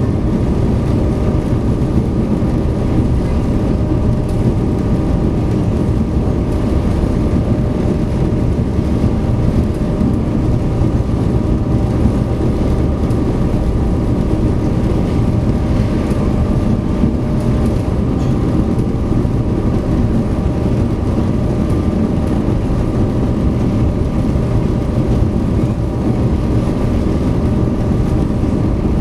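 SeaBus passenger ferry's engines running steadily at cruising speed, heard from on board: a constant low drone with several steady humming tones over it.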